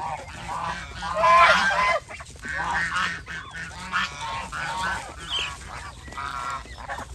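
A flock of domestic geese honking, many calls overlapping continuously, loudest about a second in.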